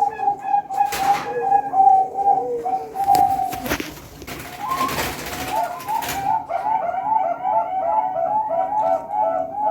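A caged competition bird calling in fast runs of short repeated notes. The calls are broken by a brief burst of noise about a second in and a longer one from about three to six seconds in, after which the rapid notes resume.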